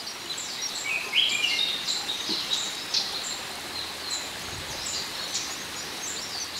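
Forest ambience of many birds chirping and calling in quick, overlapping high notes over a steady hiss, with a few lower calls about a second in.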